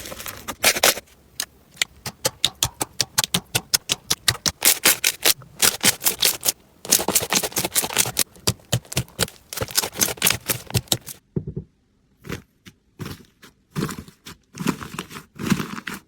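Slime being squeezed and poked by hand, giving a run of sharp crackling pops and clicks, several a second. It thins out for a moment about three quarters of the way through, then picks up again.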